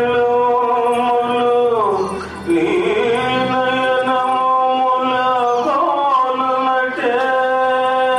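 A man singing long held notes through a microphone and PA. His voice glides down in pitch between notes about two seconds in and again near six seconds, over a faint low drone.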